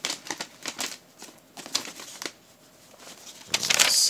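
Package wrapping being handled: crinkling and rustling with small clicks, quieter for a moment mid-way, then louder rustling near the end.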